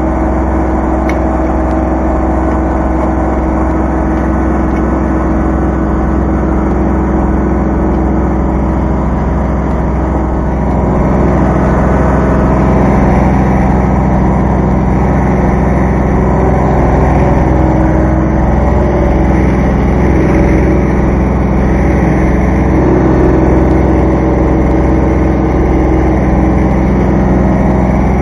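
Kubota B2320 compact tractor's three-cylinder diesel engine running steadily, getting louder about ten seconds in and holding there.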